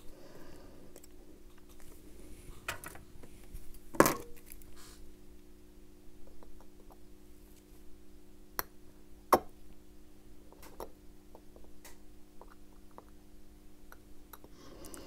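Small metal clicks and taps of a watchmaker's screwdriver and tweezers on a Bulova Accutron 218 movement and its holder while a tiny screw is worked loose, the loudest tap about four seconds in. A faint steady hum lies underneath throughout.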